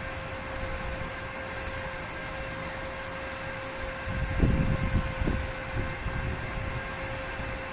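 Steady fan-like hum with a constant tone, consistent with the cooling fan of an MMA inverter stick welder running. About halfway through, irregular low thumps and rumbling join in.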